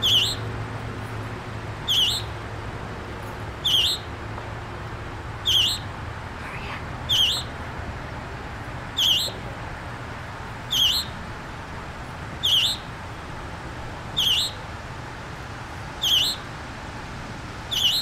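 Fledgling scarlet tanager calling: one short, high, sharp note that drops steeply in pitch, repeated at an even pace about every two seconds.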